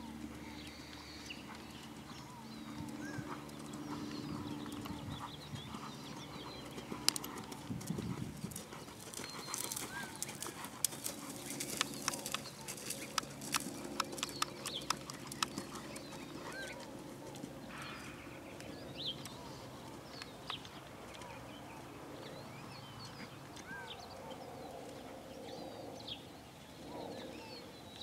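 Horse's hoofbeats on the dirt footing of a dressage arena, with a run of sharper clicks in the middle, and small birds chirping now and then.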